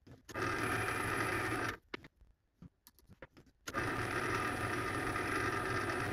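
Small metal lathe running twice, about a second and a half and then nearly three seconds, with a quiet gap of about two seconds and a few small clicks between, as a boring bar cuts inside a part held in a four-jaw chuck. Each run is a steady machine noise with a thin high whine over it.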